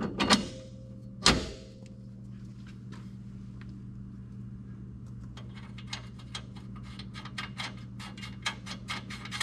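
Hand ratchet wrench clicking in short quick runs as the lift-kit bracket bolts are tightened, with one louder knock about a second in, over a steady low hum.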